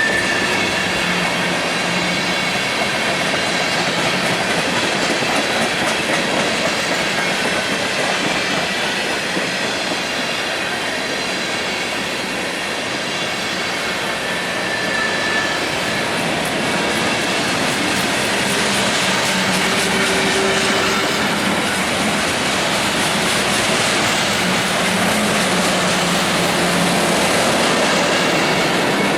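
Train of empty railcars rolling past: a steady rumble with the clickety-clack of wheels over the rails and a few brief wheel squeals.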